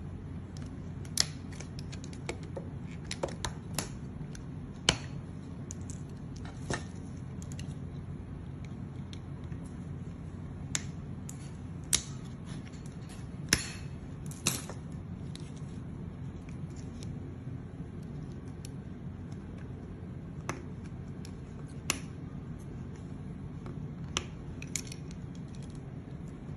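Small sharp clicks and taps of plastic figure parts and a metal pin tool being handled, scattered irregularly, as the leg of an Ocular Max Stellarus toy robot is opened to get at its knee-slider springs. A steady low hum sits under them.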